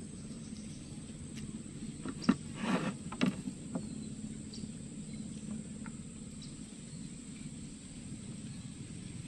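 A few sharp knocks and a brief rustle about two to three seconds in, as a fishing rod is handled and set down against a wooden canoe, over steady outdoor background noise.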